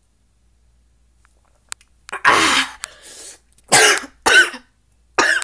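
A person coughing hard, four loud coughs beginning about two seconds in, set off by the burn of hot sauce held in the mouth.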